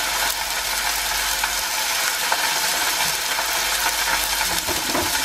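Rump steak sizzling in hot oil in a heavy-based nonstick frying pan, a steady hiss.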